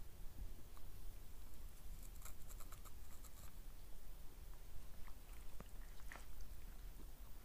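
Puppies moving about and chewing: faint scattered clicks and rustles over a low rumble, with a quick run of ticks about two seconds in.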